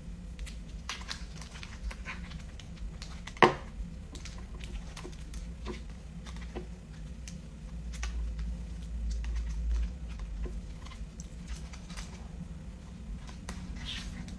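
Scattered light taps and clicks of fingers typing on a phone screen, with one sharper click about three and a half seconds in, over a low steady hum.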